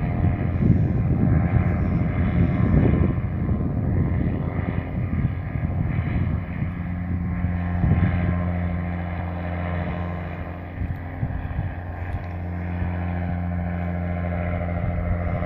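Paramotor engine and propeller droning steadily overhead, with wind buffeting the microphone for the first few seconds.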